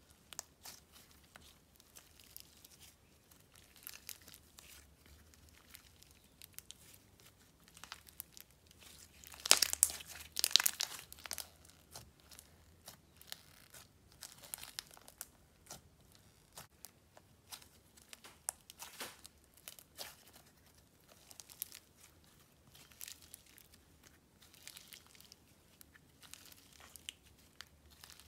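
Hands stretching and squishing a glossy icing slime mixed with foam beads, giving scattered crackles, crinkles and crunchy pops, with a louder burst of crackling about ten seconds in.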